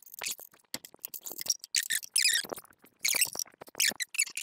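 A wrench on a brake line fitting, making short, irregular metal scrapes and clicks as the line is loosened to drain the brake fluid.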